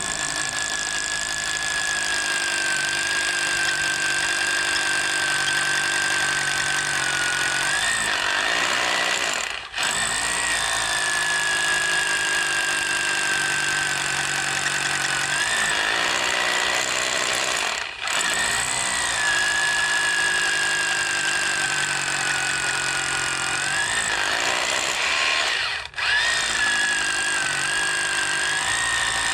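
Hammer drill boring deeper into an anchor hole for a wedge anchor, running in long stretches of about eight seconds with three brief stops. Its motor whine rises just before each stop.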